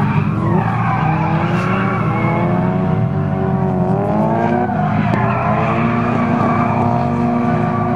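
Mitsubishi Lancer Evolution IX drifting: its turbocharged four-cylinder engine revs up and down as the throttle is worked, over a continuous tyre squeal and skid.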